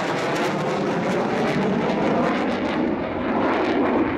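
JASDF F-15 Eagle's twin Pratt & Whitney F100 turbofans during a hard banking turn in a display flight: steady loud jet noise with a crackling edge, the low rumble growing toward the end as the jet comes round.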